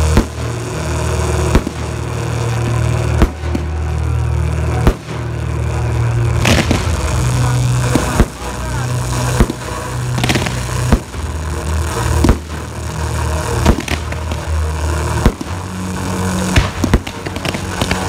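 Aerial fireworks bursting in sharp bangs, about one every one and a half seconds, over a steady low hum.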